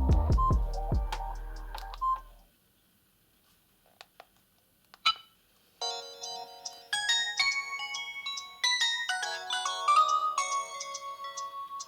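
Polyphonic ringtones from a Samsung GT-E1230 mobile phone's speaker. One melody fades out in the first two seconds, a few faint clicks follow in a near-silent gap, and a new ringtone melody of stepped high notes starts about six seconds in.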